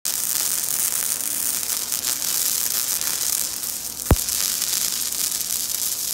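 Wire-feed welder's arc burning on a steel post: a steady, loud crackling sizzle, with one sharp pop about four seconds in.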